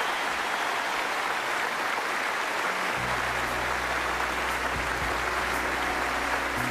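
Large theatre audience applauding steadily. About three seconds in, a low held musical note comes in underneath.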